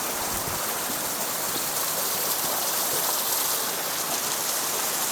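Shasui Falls waterfall: a steady, even rush of falling water, with no breaks or changes.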